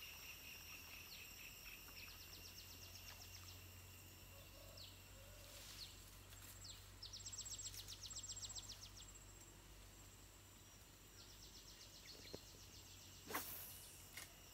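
Faint countryside insect ambience: a steady high buzz, with three bursts of rapid ticking chirps at about eight or nine a second, about two, seven and eleven seconds in. A short sharp knock sounds about a second before the end and is the loudest thing heard.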